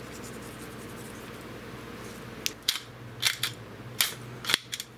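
A handheld kitchen tool clicking sharply about seven times in the second half, over a steady low hum.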